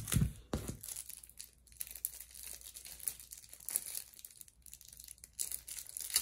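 Plastic wrapping crinkling and tearing as a sealed pack of game cards is opened, with a few soft knocks in the first second as the pack is picked up.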